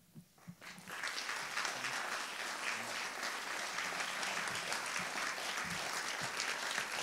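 Audience applauding: a few scattered claps at first, swelling about a second in into steady, dense applause that eases slightly near the end.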